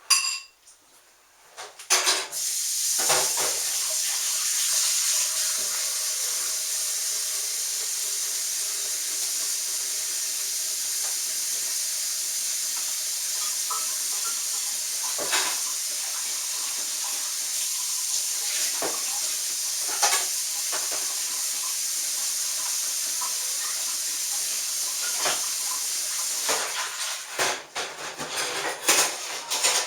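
A steady, loud hissing rush starts about two seconds in and stops near the end, with a few sharp clinks and knocks over it.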